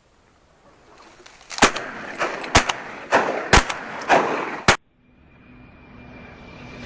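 A rapid volley of shotgun shots, about six in three seconds, as hunters fire at ducks passing overhead. It cuts off abruptly, and a steadily rising hiss with a thin steady high tone in it follows.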